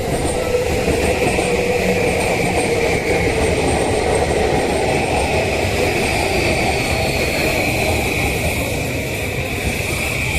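E235-series electric commuter train running on the track, a steady loud mix of wheel-on-rail noise and traction-motor tones, with a faint high tone gliding down about halfway through.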